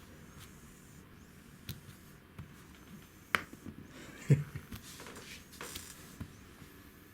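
A few sharp clicks and taps of a small plastic toy being knocked about, with one low knock about four seconds in.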